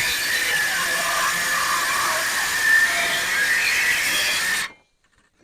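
Power saw cutting into a wooden coop door: a steady hissing cut with a high whine. It cuts off abruptly near the end.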